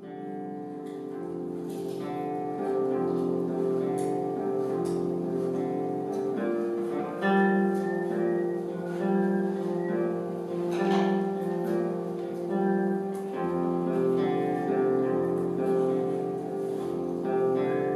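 Instrumental background music with guitar, swelling in over the first couple of seconds and then playing steadily.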